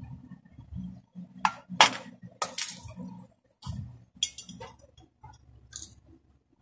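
Metal parts of a vacuum cleaner motor clinking and scraping as the motor is taken apart by hand: a handful of sharp clinks and short rattles, the loudest about two seconds in.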